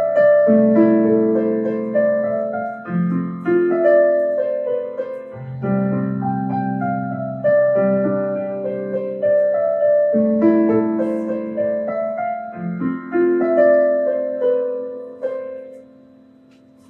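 Piano played at an unhurried pace: a simple melody over sustained chords. The notes ring on and die away near the end.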